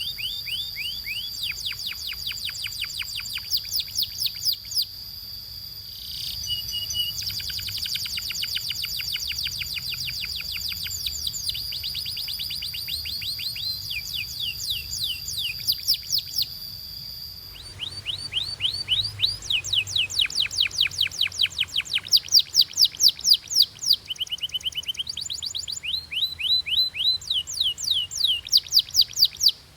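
Canary singing: rapid trills of repeated, quickly falling notes in runs of a few seconds, with a steady high tone under the first half. The recording changes abruptly partway through to a louder stretch of fast trills.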